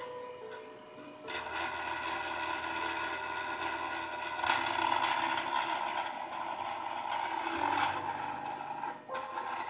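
Music from a car stereo comes in about a second in, its bass played through an amplifier and subwoofer running off a high-current 12 V power supply. Under it is a steady whine from the power supply.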